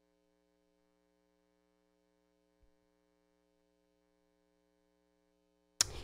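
Near silence with a very faint, steady mains hum, broken by one sharp click near the end.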